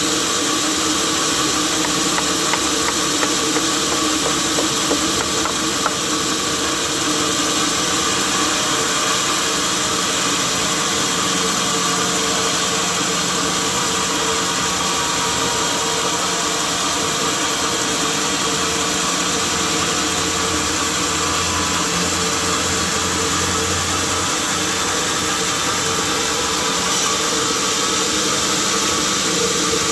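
Sawmill machinery running steadily: a loud, even mechanical noise with a steady hum under it, unchanging throughout.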